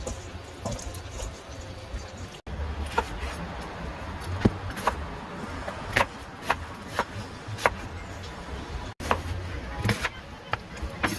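A series of sharp knocks or taps, roughly two a second, from about three seconds in, over a low steady hum.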